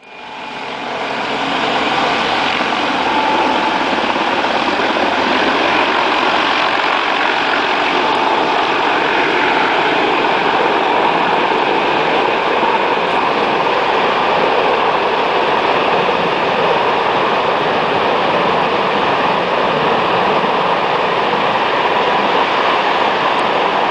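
A large firefighting helicopter flying overhead with a water bucket slung beneath it: a loud, steady noise of rotor and turbines that rises in over the first two seconds and then holds.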